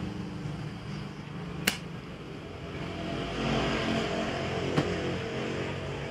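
Two sharp clicks, one about a second and a half in and one near five seconds in, over a low steady hum.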